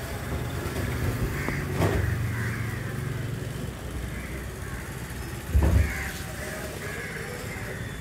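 Motorcycles passing on the street and crows cawing, with a heavy thump a little past the middle as a large fish is set down on the wet cutting table.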